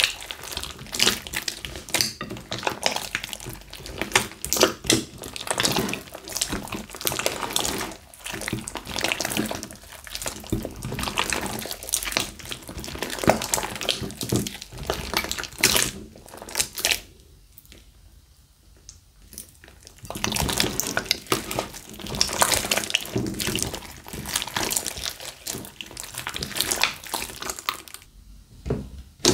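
Hands squishing and stretching a large glossy slime mixed with glitter, beads and sequins: wet, sticky squelching with dense crackling clicks. It goes quieter for a few seconds about two-thirds of the way through and again near the end.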